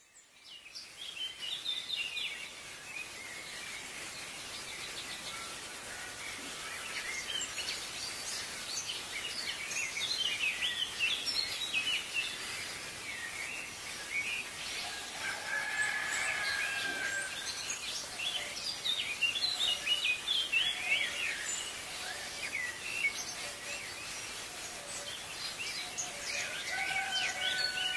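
Many small birds chirping and trilling over a steady outdoor hiss, fading in from silence at the start, with a longer whistled note now and then.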